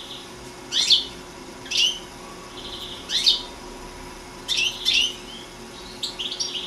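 European goldfinch singing: about five bursts of quick, sharply sweeping chirps with softer buzzy trills between them.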